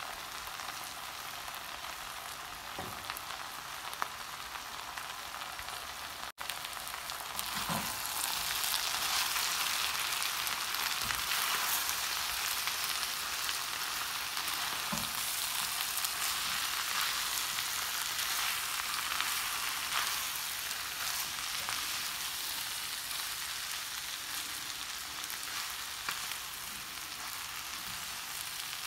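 Potatoes, French beans and onion sizzling in hot oil in a pan while a spatula stirs them, a steady frying hiss with a few soft knocks. The hiss cuts out for a moment about six seconds in, then comes back louder.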